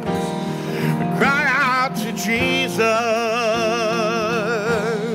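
A man singing long held notes with wide vibrato over sustained piano chords, part of a slow contemporary worship song: a higher note about a second in, then a long one from about three seconds.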